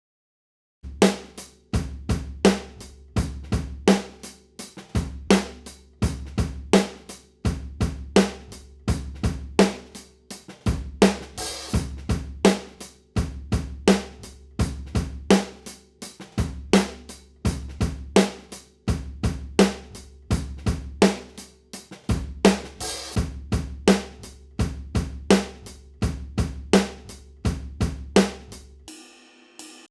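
Drum overheads recording of a full drum kit playing a steady beat, with kick drum thumps, snare hits and cymbal wash, played back through an EQ plugin. It starts about a second in and breaks off briefly near the end.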